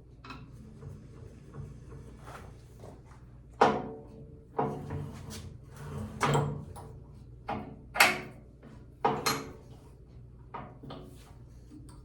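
Irregular clunks and clatters of metal parts and tools being handled and set down, about ten knocks with the loudest a little past three and a half seconds in and around eight and nine seconds in.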